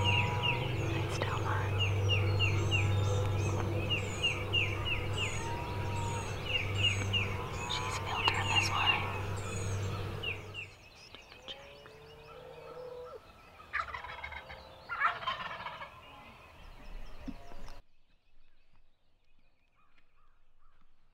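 Wild turkeys gobbling again and again, several rattling gobbles close together, with songbirds calling above them over a steady low hum. About ten seconds in, the sound breaks off; a couple more gobbles follow, then near silence for the last few seconds.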